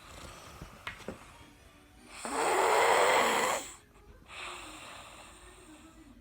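A child snoring loudly in sleep: one long loud snore about two seconds in, followed by a quieter breath out.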